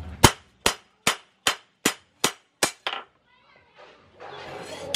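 Hand hammer striking a steel knife blank cut from a chainsaw bar on a small post anvil: about seven ringing clangs in an even rhythm a little under half a second apart, stopping about three seconds in.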